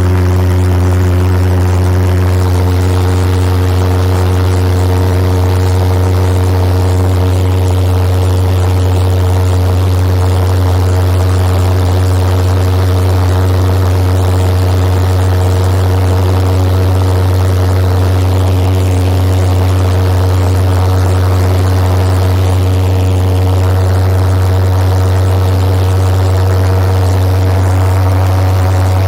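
Home-built pulsejet engine on a go-kart running hard at part throttle, a loud, steady, low buzzing drone that holds one pitch throughout.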